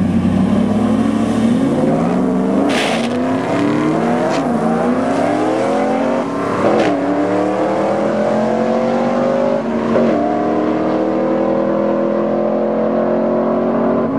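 Ford SVT F-150 Lightning pickup's V8 at full throttle down the drag strip, its pitch climbing through each gear, then dropping back at each upshift, several times.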